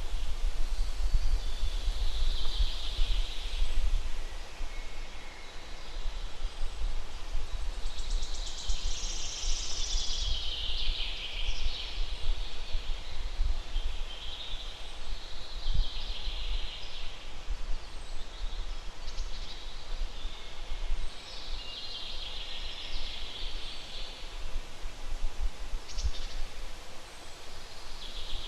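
Wild birds singing in short phrases every few seconds over a steady rumble of wind buffeting the microphone.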